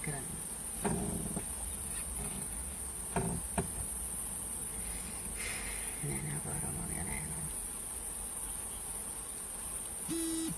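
Steady high-pitched drone of insects, with a few faint low murmurs of voices, a couple of light knocks about three seconds in, and a short hooting tone right at the end.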